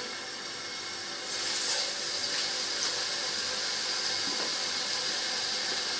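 Minced-meat kababs on bamboo skewers sizzling in a lightly oiled non-stick pan over low heat. The steady hiss swells about a second in as another skewer is laid in the pan.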